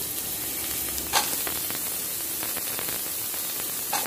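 Chopped onion and carrot sizzling in hot oil on a high flame, a steady hiss, with a clink of the metal skimmer ladle against the steel pot about a second in and another near the end.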